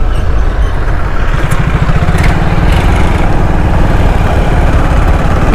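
Motorcycle engine running steadily under way, with heavy wind rumble on a helmet-mounted action camera's microphone.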